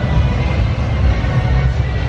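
Music playing over a steady low rumble.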